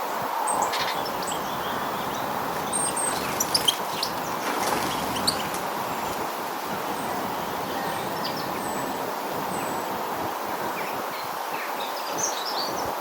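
Small garden birds giving scattered short high chirps over a steady background hiss and hum, with a few sharp clicks about three and a half and five seconds in.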